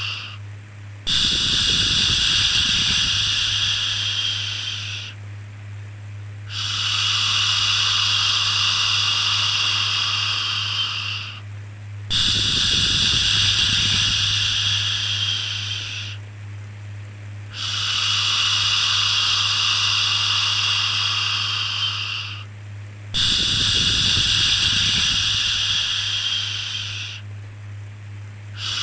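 A drawn-out 'shhh' shushing sound for soothing a baby, repeated five times: each hiss lasts about four seconds, with a short pause of about a second between them. A steady low hum runs underneath.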